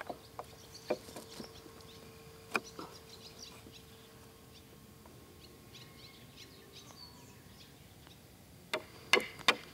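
Birds chirping faintly in the background, with a few isolated knocks early on as a steel wire rope is handled against wooden logs. A quick run of sharp knocks near the end, a hatchet striking a wooden pole.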